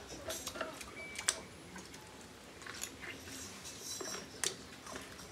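People eating macaroni with spoons: quiet chewing and mouth sounds with scattered light clicks, the sharpest about a second in and again just past four seconds.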